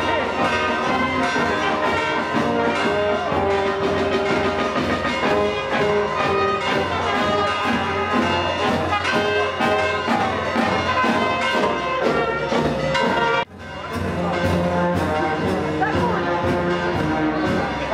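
Town wind band playing, with trumpets, trombones, saxophones and clarinets. The music briefly drops out about three-quarters of the way through, then carries on.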